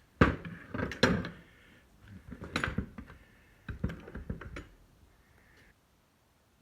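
Metal baler knotter parts and hand tools clanking and knocking as they are handled, in several short clusters that stop about five seconds in.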